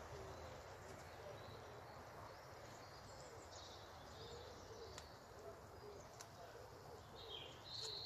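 Faint outdoor birdsong: a few high chirps a few seconds in and again near the end, over a low, wavering dove-like cooing, with two light clicks in the middle.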